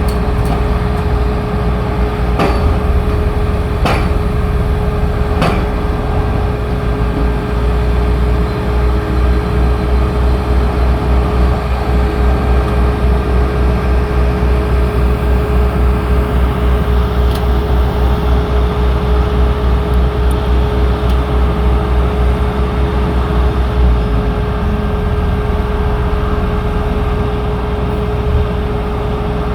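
An engine running steadily with a deep rumble and a constant hum. The rumble pulses quickly through the middle and eases a little about three-quarters of the way in. A few sharp knocks sound in the first several seconds.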